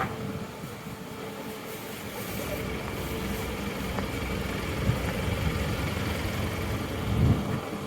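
Air-conditioner outdoor units running: a steady hum of fan and compressor with a faint steady tone in it. A brief louder low rumble comes about seven seconds in.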